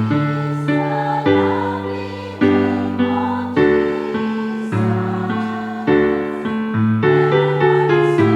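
Piano playing sustained chords, changing about once a second, with a choir singing softly over it.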